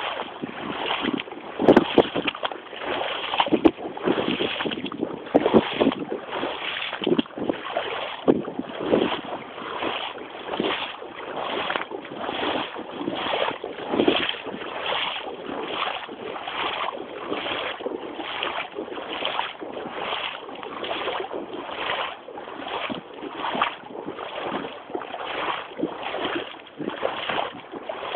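Wellington boots wading through floodwater, each stride splashing and churning the water in a steady walking rhythm of about three steps every two seconds.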